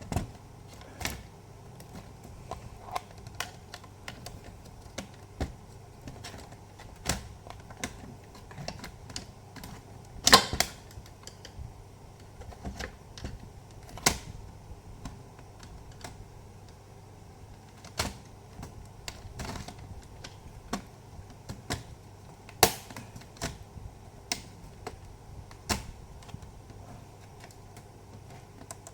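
Irregular sharp plastic clicks and snaps as an HP Pavilion G4 laptop's plastic casing is pried off with a tester pen, its clips coming loose one by one; the loudest snap comes about ten seconds in.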